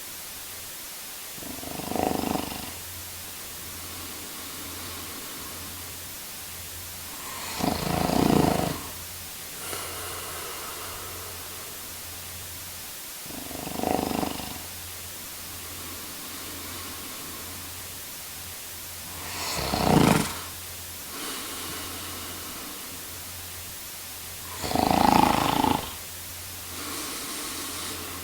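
A man snoring: five loud snores about six seconds apart, each lasting about a second, with fainter breaths after some of them over a steady low hum.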